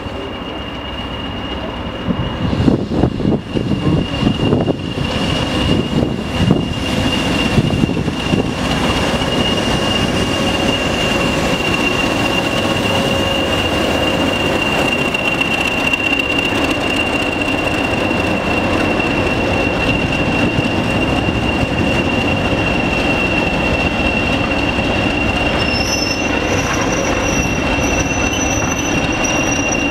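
British Rail Class 20 diesel locomotive, with its English Electric eight-cylinder engine, approaching and running past, then its train of coaches rolling by. The noise builds over the first few seconds and then holds steady, with a high whistle throughout and a higher squeal joining near the end.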